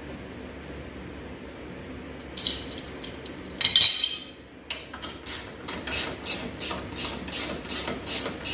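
Metal parts clanking as a shock absorber and its mounting hardware are handled, with a loud metallic clatter about three and a half seconds in. Then a ratchet wrench works in steady strokes, about three a second, running the shock mount bolt down.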